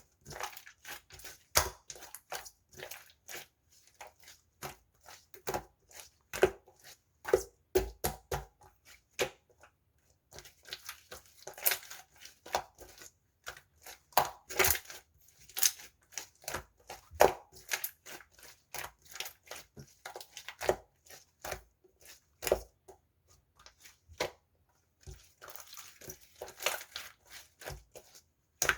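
Blue sherbet-textured water jelly slime being pressed and squeezed by hand, giving irregular crunchy crackles and sharp little pops, sometimes in quick clusters and sometimes with short pauses.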